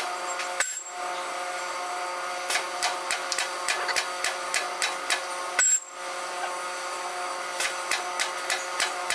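Fanuc industrial robot arm working a gripper: a steady machine whine made of several tones, a run of sharp clicks, and two short, loud hissing bursts, one about a second in and one near the six-second mark.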